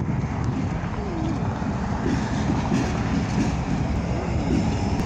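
Two EMD GP38-2 diesel locomotives, each with a 16-cylinder two-stroke 645 engine, rumbling steadily as they roll slowly past at close range during switching moves.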